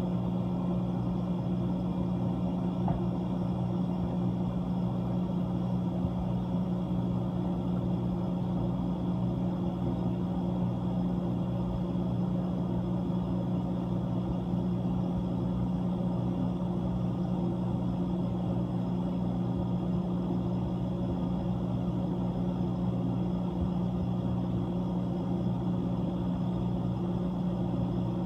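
Whirlpool ice machine's refrigeration compressor running steadily, an even low hum with a few fixed tones that does not change.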